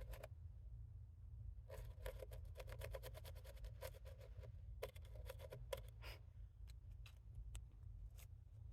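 Faint quick scratching and clicking of a cat's claws as it paws for a toy under a chair: a dense run of scratches lasting about three seconds, then scattered single clicks, over a low steady hum.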